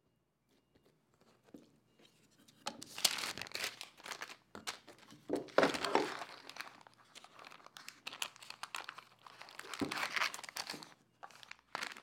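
Baking paper crinkling and rustling while a moulded rice cake is handled out of a hinged wooden mould, in three main bursts, with a few light knocks and clicks from the wooden mould.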